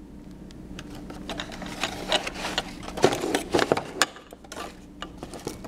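Fingers tapping on and handling a cardboard dessert box and foil-lidded glass ramekins: a run of irregular clicks and taps, busiest and loudest in the middle.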